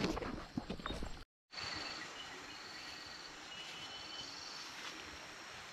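A few footsteps on a grassy path in the first second, then after a brief dropout a steady insect chorus, with high pulsing trills and a short thin whistle-like tone near the end.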